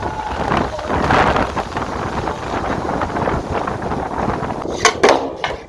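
Strong wind buffeting the microphone in a steady, gusting rumble, with a couple of sharp knocks near the end.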